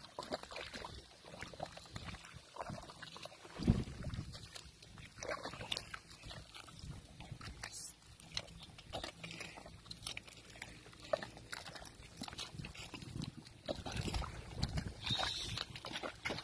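Water buffalo wading through deep mud in a flooded rice paddy, its legs sloshing and squelching in mud and water at an irregular pace, with one loud heavy splash a few seconds in.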